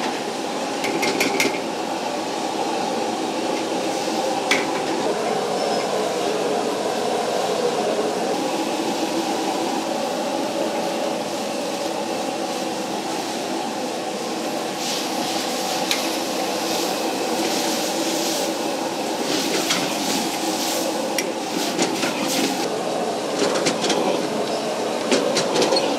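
Wok stir-frying over a high gas flame: a steady rush from the burner, with a metal ladle clanging and scraping against the steel wok. The clanging and hissing sizzle of the noodles come more thickly in the second half, as the noodles are tossed.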